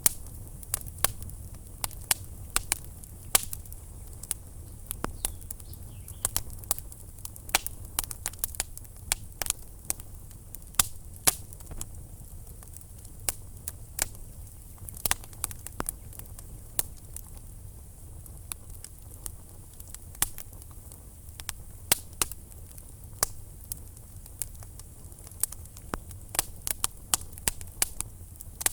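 Wood fire burning in a fireplace: irregular sharp crackles and pops from the burning logs, several a second, over a low steady rumble of the flames.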